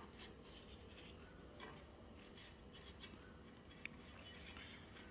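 Near silence, with a few faint rustles and light taps as filled papad cones are handled and set down on a plate.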